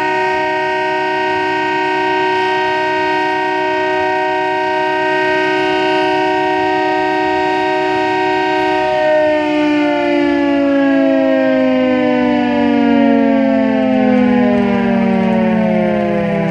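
Air-raid civil defence siren sounding the all-clear: one steady note held for about nine seconds, then winding down and falling in pitch.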